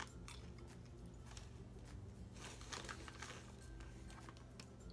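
Faint crunching of popcorn being chewed, with soft crinkles of the plastic snack bag, as scattered short sounds over a low steady hum.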